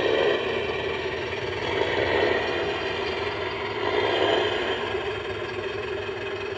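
Battery-powered toy dump truck / front loader playing its built-in engine sound effect through a small speaker: a steady idling rumble that swells a little a couple of times.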